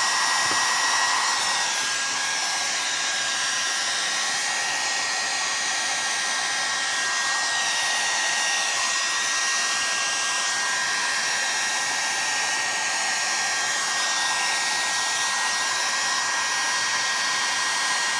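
Heat gun running steadily, a constant blowing hiss with a thin high whine, heating a magnesium chainsaw crankcase around its bearing bore so the tight crankshaft bearing will slide in.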